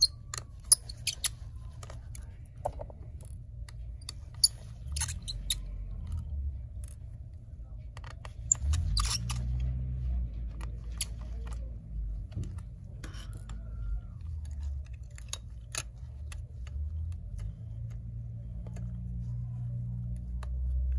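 Small sharp clicks and taps of a screwdriver and gloved fingers working on a MacBook Air's cooling fan and case, scattered irregularly, over a low steady hum that swells near the end.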